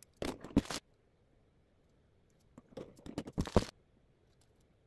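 Plastic model-kit parts runners and their packaging being handled: crinkling and light plastic clicks in two short bursts, the second about three seconds in.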